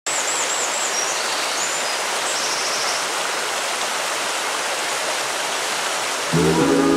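Steady rush of flowing water, with a few high bird chirps and a short trill in the first three seconds. Soft sustained music chords come in about six seconds in.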